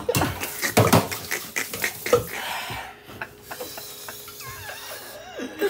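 Plastic bottles and a jug clattering as they are grabbed and handled at a kitchen sink, with a man's pained groans and whimpers from a mouth burning after a very hot chip. The clatter is densest in the first couple of seconds, and a long falling groan begins near the end.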